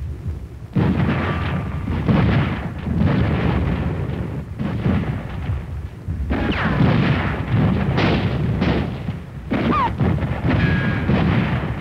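Battle sound effects: gunfire and explosions from a heavy firefight, a dense continuous rumble that comes in suddenly about a second in and swells again around six and ten seconds, with a few short whistling glides.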